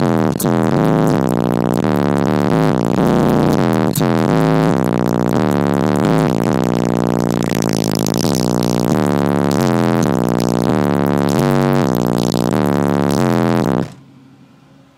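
Loud bass-heavy music played through a car stereo's four 18-inch XCON subwoofers, driven by a Sundown SAZ-3000D amplifier, heard inside the truck cab. The music cuts off abruptly near the end.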